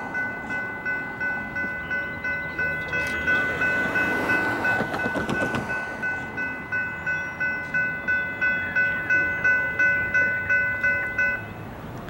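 Railroad grade-crossing warning bell ringing steadily at about two to three strikes a second, warning of an approaching train, then stopping shortly before the end.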